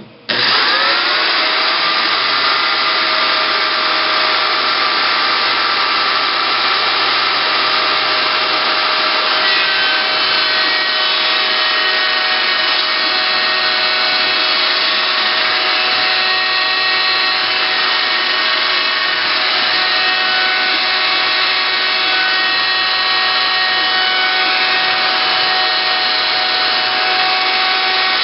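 CNC wood router's spindle motor spinning up in about the first second, then running loud and steady with a whine of several held tones.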